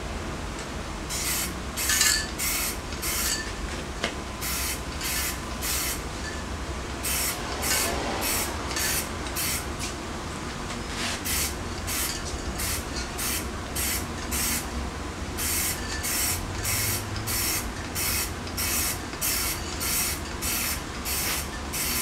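Aerosol spray paint can hissing in many short bursts, about two a second, as a coat of paint is sprayed onto a bike frame.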